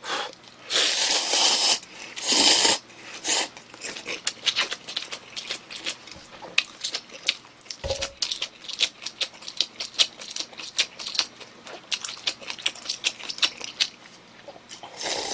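Two loud slurps of cup-ramen noodles, about one and two and a half seconds in, followed by a long run of wet chewing and smacking close to the microphone.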